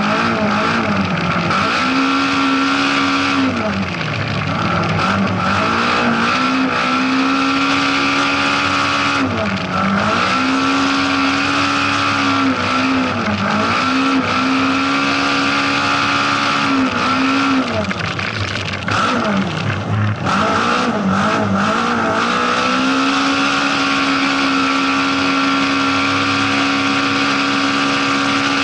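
Rally car engine heard from inside the car on a dirt stage, held at high revs with repeated short drops in pitch as the driver lifts off or brakes for corners and then climbs back up. From about two-thirds in, the engine holds a steady high note.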